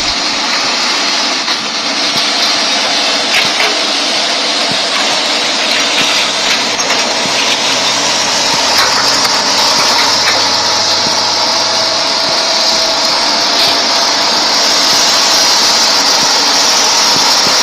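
Excavator engine running steadily under work, with a few short clanks along the way.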